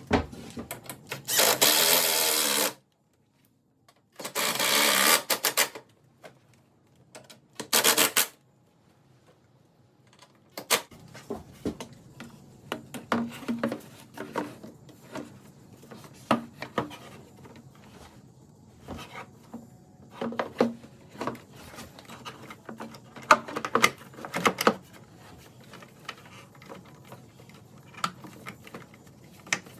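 Three short bursts from a power tool in the first eight seconds, each cutting off suddenly, then a long run of light tool clicks and clatter during work on the engine.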